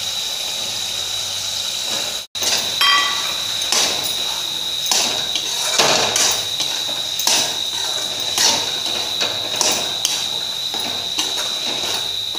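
Metal perforated spatula knocking and scraping against a kadhai as green peas are stirred into frying masala, about one knock a second over a steady sizzling hiss. The sound drops out briefly about two seconds in.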